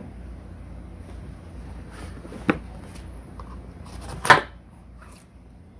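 Handling noises from hard parts being picked up and set down: a sharp click about two and a half seconds in, then a louder clack with a brief rattle a little after four seconds.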